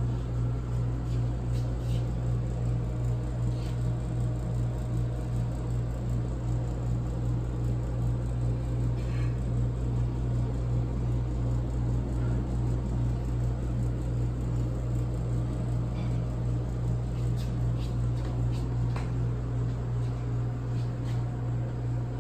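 Refrigerated display case running with a steady, loud low hum, with a few faint clicks on top.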